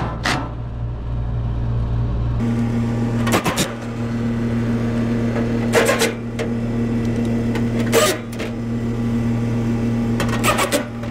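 Makita cordless drill driving screws to fasten the blower motor assembly into its housing. A steady motor whine sets in about two seconds in and runs on, with four short sharp sounds as screws are driven home.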